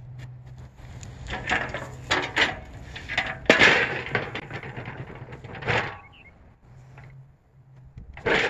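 Scraping, rustling and knocking as material is worked at and over a steel burn barrel, loudest about three and a half seconds in. A sharp knock comes near the end as a board or lid is laid on the barrel's top.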